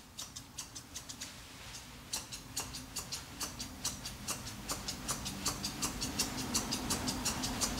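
Dog-grooming thinning shears snipping through the hair over a dog's eyes: a quick, even run of small metallic clicks, sparse at first, then about four a second from around two seconds in.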